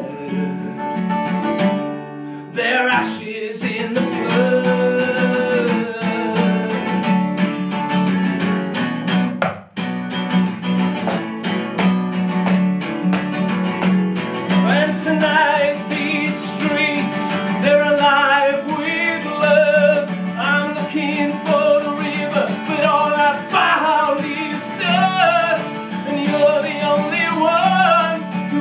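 Acoustic guitar strummed live in a steady rhythm, with a brief break just under ten seconds in. A man's voice sings over the guitar through the second half.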